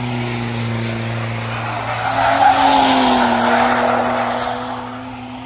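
A motor vehicle running with a steady low hum, joined by a rush of noise that swells to a peak about halfway through and fades near the end.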